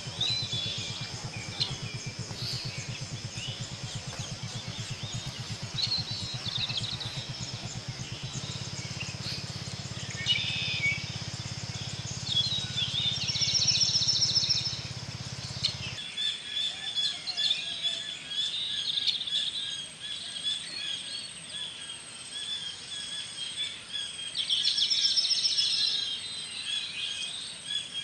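Wild birds chirping and calling, with a fast rattling trill twice, over a steady high insect buzz. A low pulsing hum sits underneath and cuts off abruptly about halfway through.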